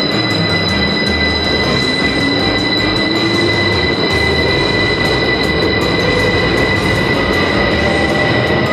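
Heathrow Express electric train running, a steady loud rail rumble with two high steady whines over it and a lower motor tone rising in pitch over the first few seconds.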